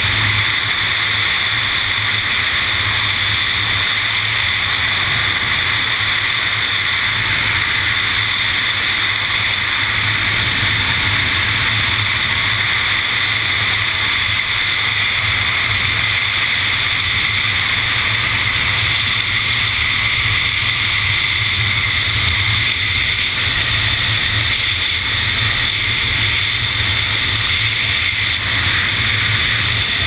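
Freefall wind rushing over a GoPro camera: a steady, unbroken roar.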